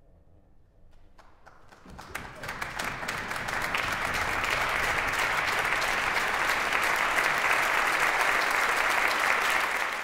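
Applause after the final silence of a piece: a few scattered claps about a second in, building quickly into steady applause that fills the hall.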